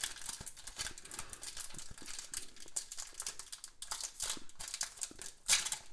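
Foil trading-card pack wrapper crinkling and tearing as it is pulled open by hand, a fine crackly rustle with a louder crackle near the end.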